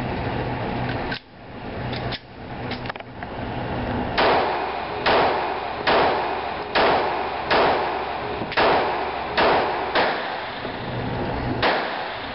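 Smith & Wesson M&P9 Shield 9mm pistol firing about nine shots in slow, steady succession, a little under a second apart, each crack with a short echo off the indoor range walls.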